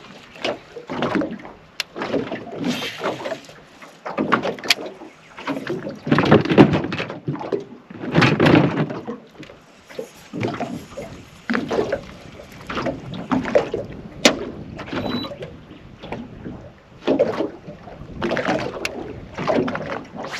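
Water slapping and sloshing against a small fishing boat's hull in uneven swells, with a few sharp knocks and clicks.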